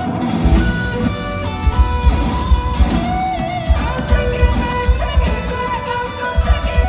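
Live rock band playing at a sound check: electric guitar lines over heavy drum beats, which come in about half a second in.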